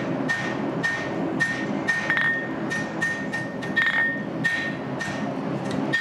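Hand hammer striking a steel bar on an anvil in a steady rhythm, about two blows a second, each with a bright ring: drawing out a taper on the end of the bar.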